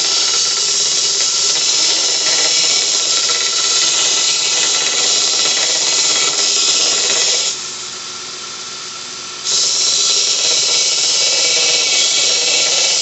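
Homemade 2x42 belt sander with skateboard-wheel idlers grinding a piece of metal: a loud, steady, hissing grind. About seven and a half seconds in it goes quieter for about two seconds, then the full grinding resumes.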